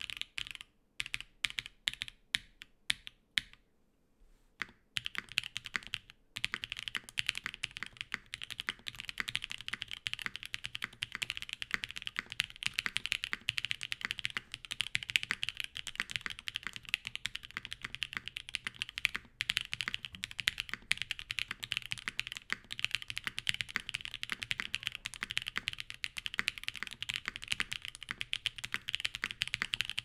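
Gasket-mounted gok 7V mechanical keyboard with an FR4 plate, plate foam and lubed, filmed Black Cherry Pie linear switches being typed on. A few separate key presses come first, then a brief pause, and from about five seconds in, steady fast typing.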